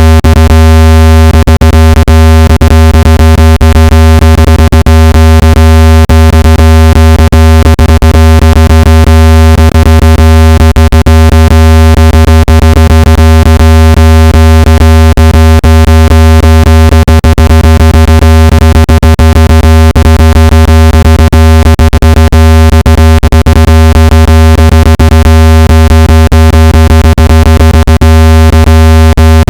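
Synthesized low-pitched test tone for pushing water out of a phone speaker, held steady and very loud with a stack of higher overtones. Irregular clicks run through it.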